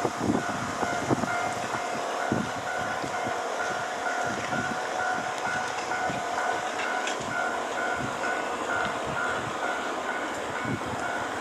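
JR Freight EH500 electric locomotive and its container wagons rolling past, with a steady rumble and repeated knocks from the wheels over the rail joints. A steady tone sounds in the first few seconds, and a regularly repeating tone runs through most of it.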